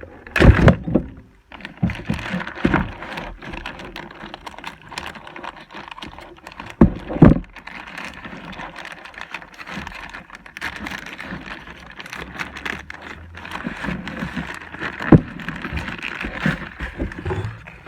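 A package being unboxed by hand: rustling and scraping of packaging, with many small clicks and several loud knocks as the mini plastic wheelie bins are lifted out and set down.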